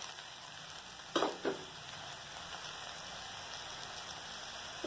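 Chopped vegetables and freshly added red poha (flattened rice) sizzling softly in an oiled pan, a steady hiss. Two quick taps a little over a second in.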